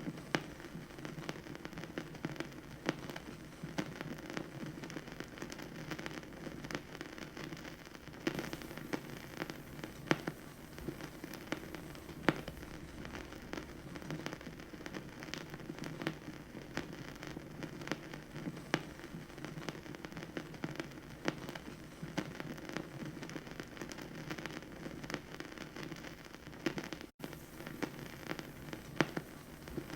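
Vinyl record surface noise: a steady crackle of many small pops and clicks over a low hiss, with a few sharper pops standing out. The sound cuts out for an instant near the end.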